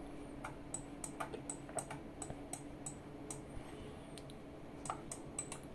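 Crucial P3 Plus NVMe SSD making faint, sharp electronic ticks, about four a second with a short pause in the middle. This is the drive's noise under disk activity: still there, but not so loud, with C-states control turned off in the BIOS.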